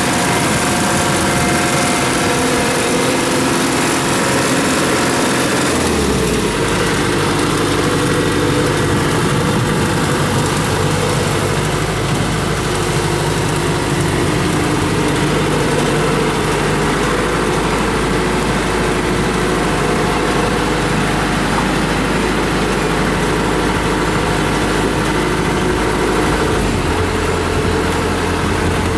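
Kubota DC-105X combine harvester's diesel engine running steadily while the machine crawls on its tracks; the engine note changes about six seconds in and again near the end.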